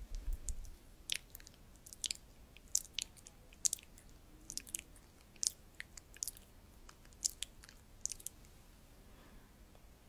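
Close-miked ASMR mouth sounds: soft, wet lip and tongue clicks coming irregularly, one or two a second, with a brief low bump of handling noise at the start.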